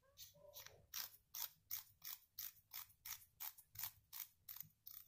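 Ratcheting clicks of a CNC Q5 rotary tattoo pen's twist adjustment as one part of the pen body is turned against the other, a steady run of small sharp clicks at about three a second.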